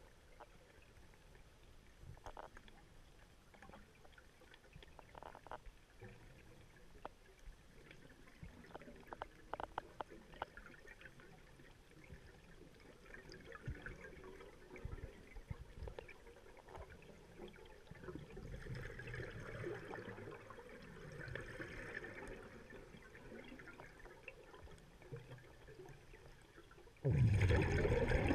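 Underwater ambience heard through a camera housing: faint scattered clicks and crackles over a low hiss. Near the end a loud rush of a diver's exhaled bubbles.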